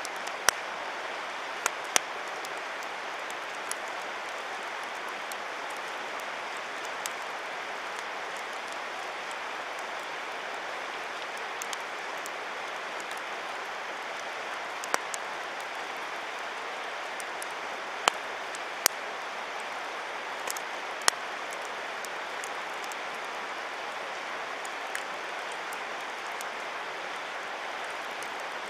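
Wood campfire crackling, with sharp irregular pops and snaps of burning wood over a steady rushing hiss.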